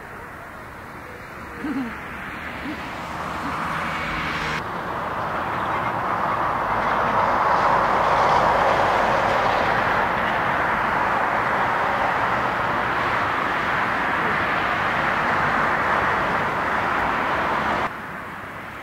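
Jet airliner engines on the ground: a steady rush of jet noise. It jumps louder at a cut about four and a half seconds in, where it comes from an Asiana Boeing 747, swells and holds. It drops suddenly to quieter jet noise near the end.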